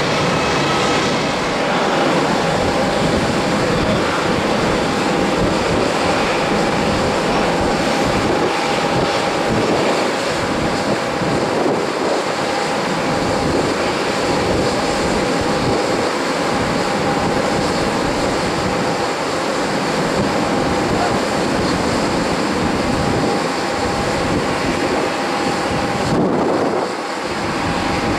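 Boeing 777-200ER's twin jet engines running at taxi power: a steady rushing noise with a thin held whine, dipping briefly near the end.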